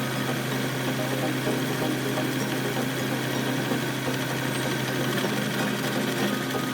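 Electric meat grinder motor running with a steady hum.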